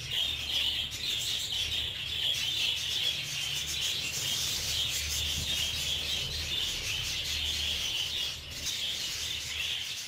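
A flock of budgerigars chattering and warbling together in a steady, continuous twittering.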